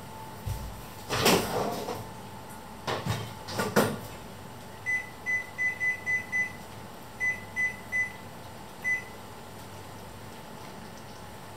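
A few clatters of metal pots or lids, then a run of about ten short, high beeps at uneven spacing, like the keys of a glass-ceramic hob's touch controls being pressed. A steady faint hum runs underneath.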